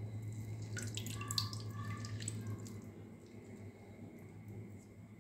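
Water dripping and splashing into a bowl as soaked urad dal vadas are squeezed out by hand, a cluster of drips in the first couple of seconds, then fainter, over a low steady hum.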